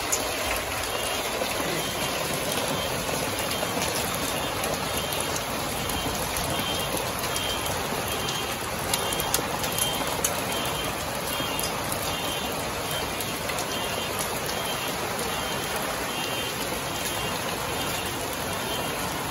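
Hail and heavy rain falling on a gazebo roof and a wooden deck: a steady, dense patter, with a few sharper hits about nine to ten seconds in.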